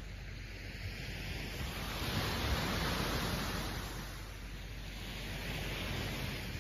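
Small ocean waves breaking and washing up a sandy shore: one wash swells to its loudest about two to three seconds in and fades, and another builds near the end.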